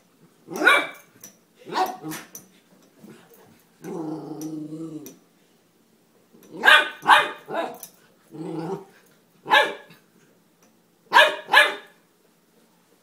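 Golden retriever puppy barking in short, high yappy barks, some in quick pairs. About four seconds in, it gives one longer, low growl.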